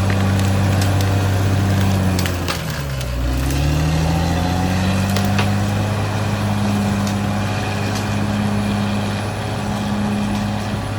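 Caterpillar D6R XL bulldozer's diesel engine running under load; about two and a half seconds in its pitch drops as it lugs down, then climbs back up. Scattered sharp cracks and clatter sound over the engine.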